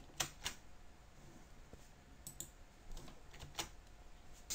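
Faint, scattered clicking at a computer: about half a dozen separate clicks spread over four seconds.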